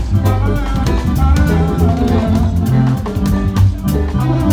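Live highlife band playing: electric bass guitar and drum kit keeping a steady groove, with a man singing over it through the PA.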